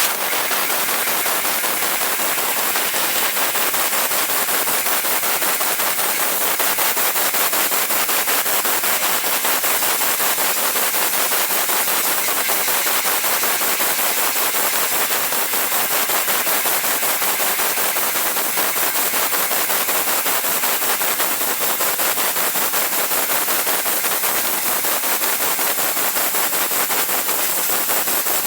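Hans Laser G3015HF fiber laser cutting machine cutting sheet metal: a steady, dense, rapid crackling hiss.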